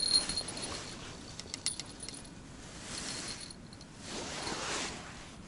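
Small bite-alarm bell on a bottom-fishing rod tinkling lightly: once at the start and again about a second and a half in.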